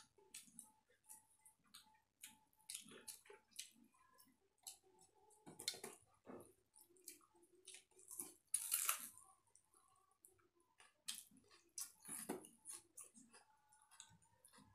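Faint eating sounds: fingers mixing wet rice against steel plates and chewing, with many small scattered clicks and one louder, noisier sound lasting about a second, around nine seconds in.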